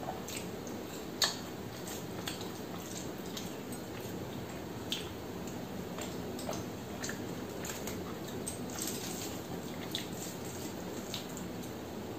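Close-miked eating by hand: wet mouth clicks and lip smacks while chewing very soft, overcooked rice mixed with dal, and fingers squishing the rice on a steel plate. Scattered short clicks, the sharpest about a second in.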